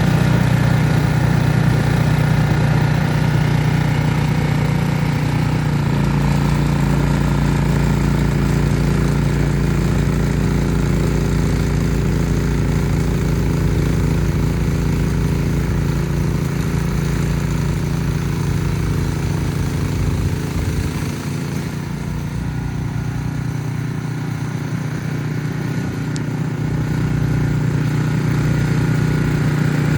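Ariens Platinum SHO 24-inch snowblower engine running steadily, dropping somewhat in level about two-thirds of the way through, then coming back up near the end.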